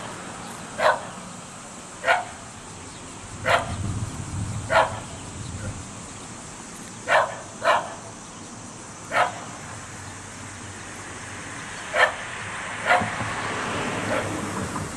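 A dog barking single short barks, about nine in all, irregularly spaced a second or more apart.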